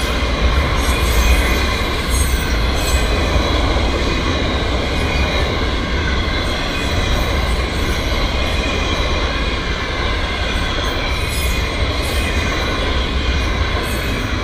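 Florida East Coast freight train's autorack cars rolling past a grade crossing: a steady, loud rumble of wheels on rail with short clatter and squeal now and then.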